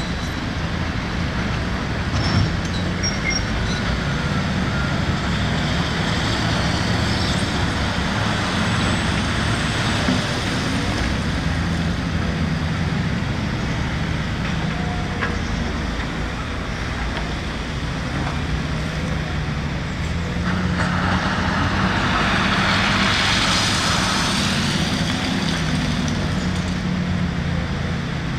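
Heavy diesel machinery engine running steadily with a low drone. About two-thirds of the way through, a louder rushing noise swells for a few seconds and then eases off.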